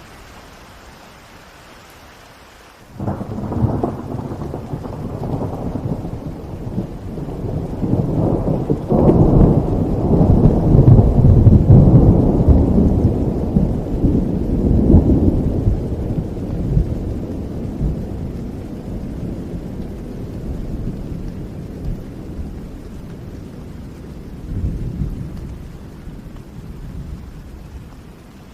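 Steady rainfall with a long roll of thunder that breaks in suddenly about three seconds in, builds to its loudest near the middle, and rumbles away slowly.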